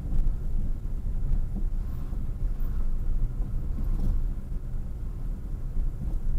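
Low, steady rumble of a moving car's engine and tyre noise, heard from inside the cabin.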